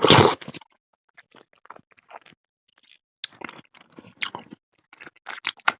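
Close-up mouth sounds of a person chewing fruit salad with cheese: wet, clicky chewing with small crunches. It opens with one short, loud rush of noise.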